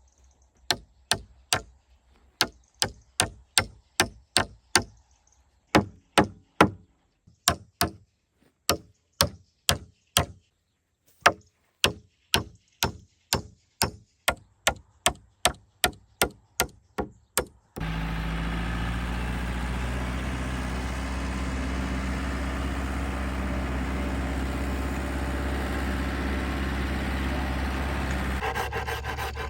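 Repeated sharp strikes on wood, about two a second with a few short pauses. Near the end, a loud steady machine noise with a low hum starts abruptly.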